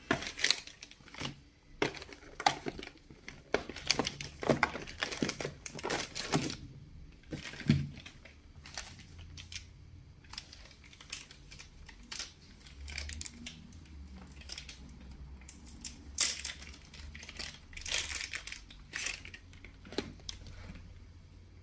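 Plastic packaging sleeves crinkling and rustling as router antennas are lifted out of their cardboard box tray, in many short bursts that are busiest for the first several seconds and come more sparsely after that.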